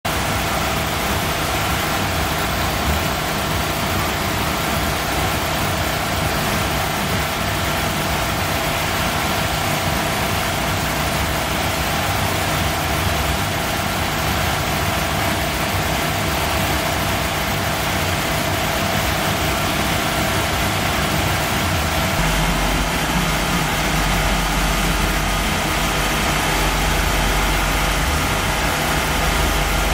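2001 Nissan Maxima SE's V6 idling as the car creeps at low speed onto a trailer-mounted chassis dyno. The engine runs steadily, and a deeper low rumble joins about 22 seconds in.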